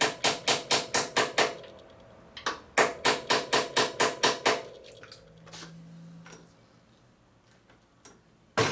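Hammer driving a thin steel punch against the fork stem's adjusting nut to tighten a motorcycle's steering-head bearings. Two quick runs of ringing metal-on-metal taps, about six a second, then a pause and one sharp knock near the end.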